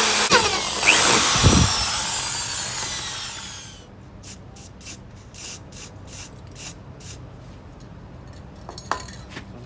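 Power tool working steel flat bar, a loud whine that falls in pitch and dies away over the first few seconds as the tool spins down. Then a quick string of short high-pitched bursts and a single click near the end.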